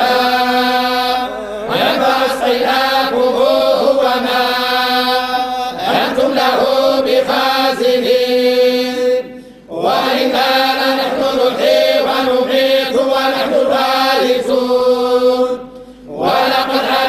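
A group of men's voices chanting the Quran in unison in the Moroccan collective style (tahzzabt, group hizb recitation): a steady, held, melodic chant. Two short pauses fall between phrases, around halfway through and near the end.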